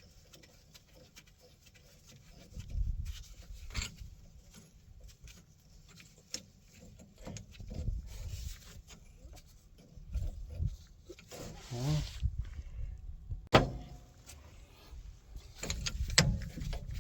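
Hand work on excavator hydraulic fittings: metal parts clinking and rubbing as a hose fitting is put back on, with a short squeak and then a sharp metallic click about two-thirds through.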